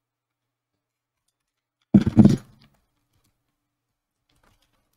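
Double-sided adhesive tape being peeled off a laptop lid: one short, loud crackling rip about two seconds in, lasting about half a second, with near silence around it.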